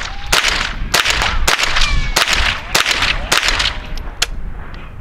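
A Henry AR-7 semi-automatic .22 LR rifle firing Federal Auto Match rounds: six shots about half a second apart, each trailing a short echo. Near the end comes a sharp click with no shot, a misfire.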